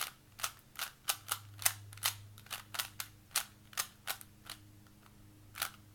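Plastic Rubik's Cube being turned fast by hand through an OLL algorithm: a quick, irregular run of sharp clicks and clacks as the layers snap round, with a pause of about a second near the end.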